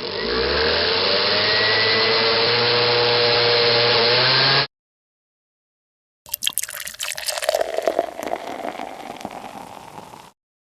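Blender motor running steadily for about four and a half seconds, its pitch rising slightly, then cut off suddenly. After a silent gap comes about four seconds of a noisier sound full of crackles and clicks.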